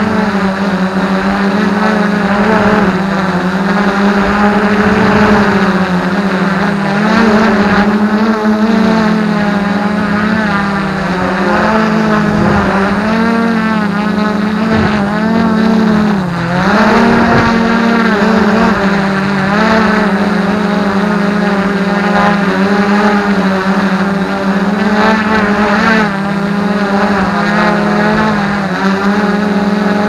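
F450 quadcopter's motors and propellers hovering, a steady buzz whose pitch wavers up and down as the flight controller corrects. About halfway through the pitch dips and then climbs again.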